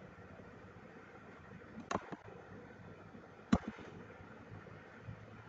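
Two sharp clicks, about a second and a half apart, the second louder, over faint room noise.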